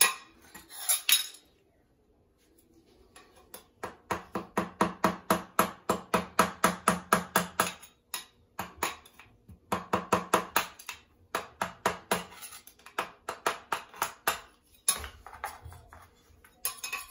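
Metal spatula scraping old silicone adhesive from around a toilet base in quick back-and-forth strokes, about four a second, in runs of a few seconds with short pauses between.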